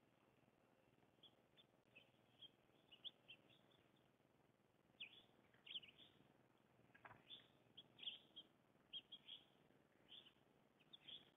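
Faint, short chirps and call notes from a mix of small songbirds, scattered irregularly at roughly two a second.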